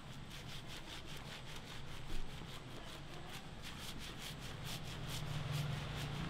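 Fingers scrubbing a shampoo-lathered scalp and hair, a quick, even rhythm of wet, soapy rubbing strokes, about three to four a second.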